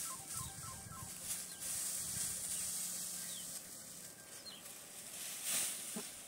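Dry straw rustling and crackling as armfuls are handled and laid onto a plastic sheet, in uneven swells with the loudest about five and a half seconds in, over a steady high hiss. A few short bird-like chirps.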